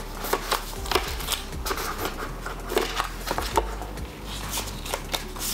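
Paper and card packaging being handled: irregular short rustles, taps and slides as a white card documentation packet is lifted from the box and its card pieces are pulled apart.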